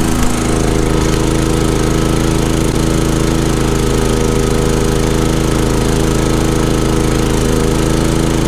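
Champion 3400 dual-fuel inverter generator running steadily in eco mode, loaded by a 13,500 BTU RV air conditioner that it keeps running without trouble.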